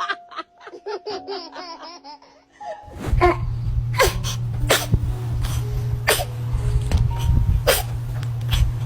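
A baby laughing in quick bursts. About three seconds in, music with a steady low bass takes over, and several short, sharp, irregularly spaced sounds come over it.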